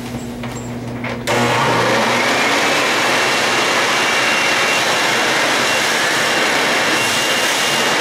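A homemade dryer-vent vacuum built from a powerful electric leaf blower is switched on about a second in. Its motor spins up with a rising whine over the next two seconds, then runs at full speed with a loud, steady rush of air and a high whine. Before it starts, a low hum and a few clicks are heard.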